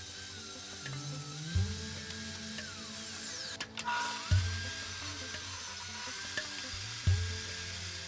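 Table saw running and cutting a slot along a plywood strip, its motor whine sagging in pitch under the load of the cut and recovering. Background music with a soft beat every few seconds plays along.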